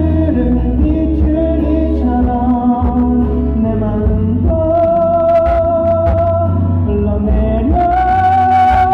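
A song sung to instrumental accompaniment over a steady bass, the voice holding two long notes in the second half.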